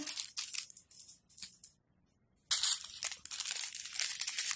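Small plastic bags of resin diamond-painting drills crinkling as they are handled: a few scattered crackles at first, a brief gap, then steady dense crinkling for the last two seconds.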